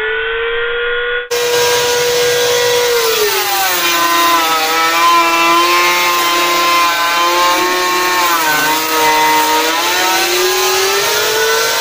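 Electric hand planer running at full speed, then bogging down as its blades cut into the wood: about three seconds in its whine drops in pitch and stays lower for roughly seven seconds under load, then rises back to free-running speed near the end.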